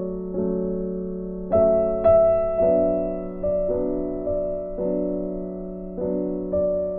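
Slow, soft piano music, with notes or chords struck about once a second, each fading away.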